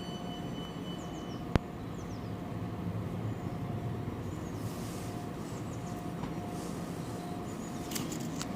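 DB Class 423 S-Bahn electric train at the platform: a steady low rumble and hum, with one sharp click about one and a half seconds in and short hissing bursts midway and near the end.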